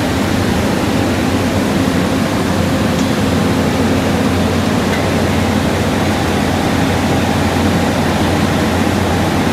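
Steady drone with a constant low hum from the mobile rail flash butt welding machine's power unit running.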